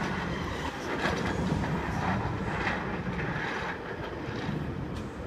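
Sydney Trains Waratah (A set) electric train running along the platform tracks: a steady rumble of wheels on rail, with scattered clicks over the joints.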